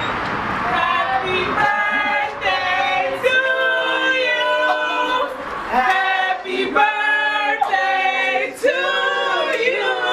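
A group of male and female voices singing together without instruments, in several drawn-out phrases. A broad hiss fades out in the first second or so.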